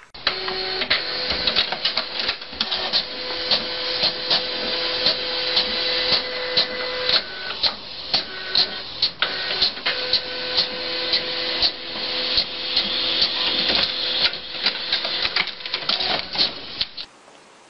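Desktop printer running: a steady motor whine with frequent sharp clicks and clacks of the mechanism. The whine pauses for a couple of seconds about halfway, then resumes, and the sound cuts off suddenly near the end.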